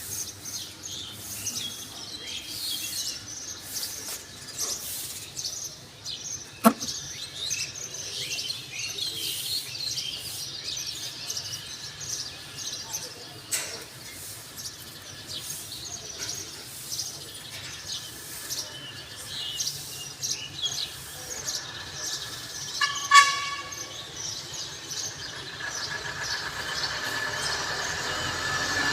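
Many small birds chirping and twittering, with a sharp click near the start and a short horn toot about two-thirds of the way through.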